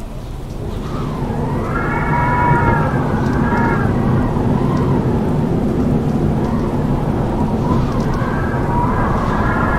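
Strong wind howling: a deep, rumbling rush of gusts with a wavering whistle that rises and falls in pitch, swelling over the first couple of seconds.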